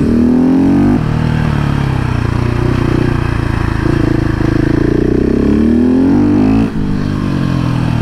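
KTM 690 SMC R's single-cylinder four-stroke engine under hard acceleration. Its pitch climbs and drops as it goes through the gears, with a sudden brief dip near the end.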